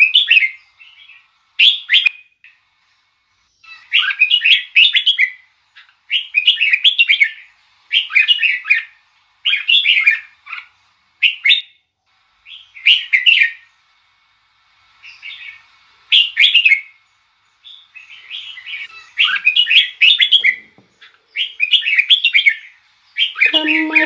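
A songbird, which sounds like a red-whiskered bulbul, singing short chirpy phrases over and over, about one every second or two, with brief pauses between.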